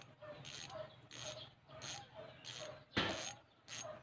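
ARC bicycle hub's freewheel ratcheting as the hub is spun, its pawls clicking in short buzzing spurts that repeat about every half second, with one sharper knock about three seconds in.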